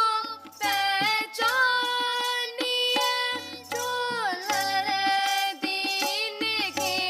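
Sikh kirtan: young voices sing a shabad in long, gliding notes over a harmonium, with tabla strokes underneath.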